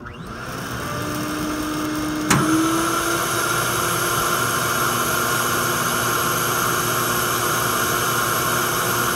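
Shop vacuum switched on and running steadily with a humming motor, drawing a trash-bag shuttle through a long run of 1-inch conduit. A sharp click about two seconds in, after which it runs slightly louder.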